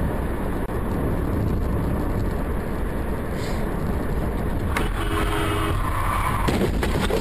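Steady engine and road noise inside a moving car, picked up by a dashcam. About five seconds in a brief tone and whine sound, then several sharp knocks near the end as the car hits an SUV crossing its path.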